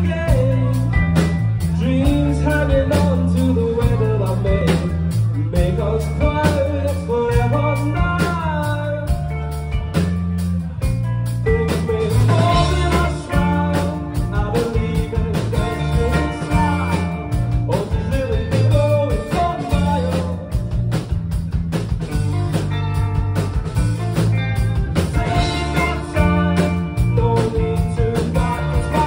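Rock song played live by a band on electric guitars, electric bass and drum kit. The drums keep a steady beat under a moving bass line and guitar parts.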